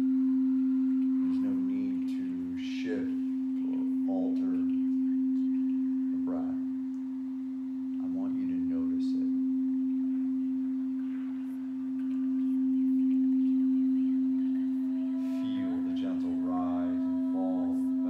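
Frosted quartz crystal singing bowl played with a mallet, giving one steady low tone that swells and ebbs slowly every few seconds.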